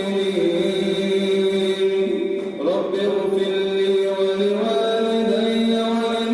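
A man reciting the Quran in a slow, melodic chant, holding long drawn-out notes. There is a brief break with a sliding pitch about two and a half seconds in, then he holds a higher note from about five seconds on.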